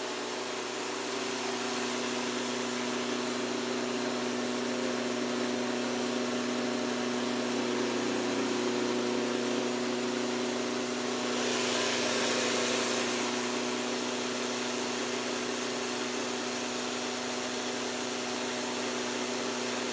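Small household rice mill running steadily, a constant mechanical hum with a brief louder rush of hiss about twelve seconds in.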